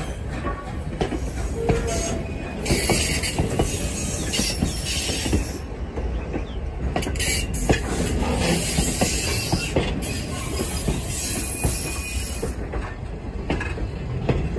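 Passenger coaches of a steam train rolling past close by: steel wheels clicking over rail joints over a steady rumble, with high-pitched wheel noise on the rails coming and going.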